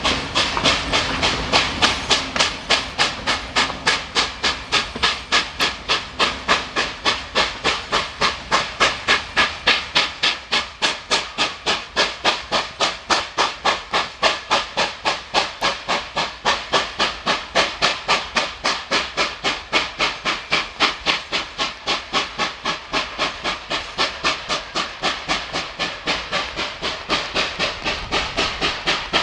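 Steam locomotive working, its exhaust chuffing in a fast, even rhythm of about four beats a second.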